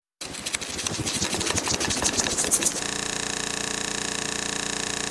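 Harsh electronic glitch noise: rapid crackling and clicking for about two and a half seconds, then a steady, fluttering buzz with many overtones that cuts off abruptly.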